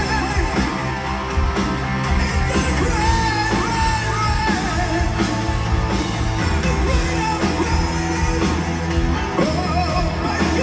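Live heavy metal band playing at full volume: drums, bass and distorted guitars, with a sustained lead melody on top that bends in pitch.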